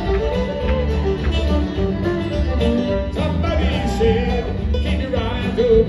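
Live bluegrass band playing a break between sung lines, with banjo, acoustic guitar, electric bass and drums over a steady bass pulse.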